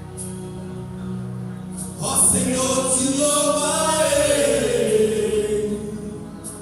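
Men's choir singing a gospel hymn together. A held chord sounds at first, then the voices come in loudly with a sung, gliding melody about two seconds in.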